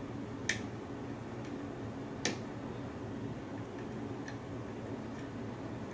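Small metallic clicks from single-pin picking a Lockwood pin-tumbler cylinder: a hook pick lifting pins against a tension wrench. Two sharp clicks come about a second and three quarters apart, with a few fainter ticks later, over a steady low hum.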